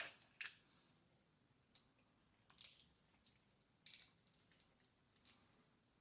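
Quiet eating sounds: a few scattered sharp cracks and snaps, as of seafood-boil shells being broken and picked apart by hand, about five in all.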